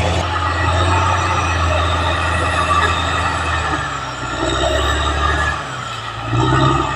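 Caterpillar D6R XL bulldozer's diesel engine running under load. Its note sags and quietens about five and a half seconds in, then picks up again near the end.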